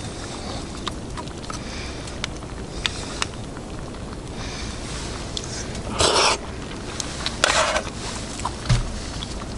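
Rustling and scattered light clicks, with two louder swishing rustles about six and seven and a half seconds in and a dull thump near the end.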